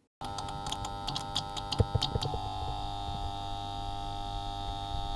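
Electronic power-up sound effect: a steady hum made of several held tones, with irregular clicks and ticks over the first two seconds. After that the clicks stop and the hum settles into a steady drone.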